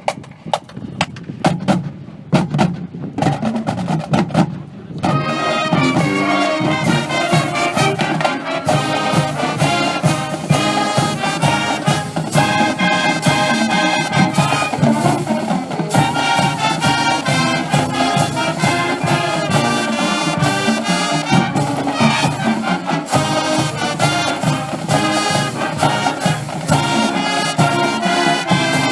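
Brass-led band music with drums. It opens with sharp drum hits and fills out into the full band about five seconds in.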